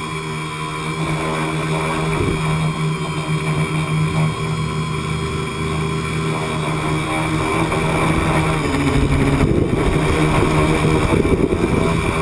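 Tricopter's electric motors and propellers whining steadily, heard from the onboard camera, the pitch shifting a little with throttle. About eight seconds in the sound grows louder and rougher for a few seconds before settling.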